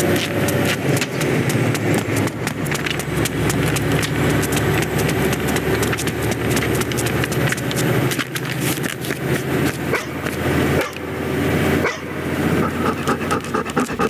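Animated-film chase sound effects: a truck's engine and road noise under a rapid patter of running footfalls, with a dog panting near the end.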